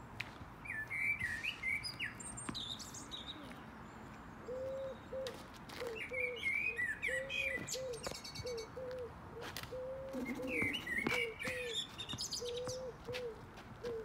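Songbirds singing in the trees: three separate warbling song phrases, high-pitched. From about a third of the way in, a short low note repeats steadily underneath, often in pairs.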